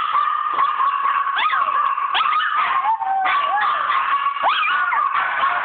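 Small dog howling: a high, drawn-out note with yelping cries that slide up and down in pitch through it, several times.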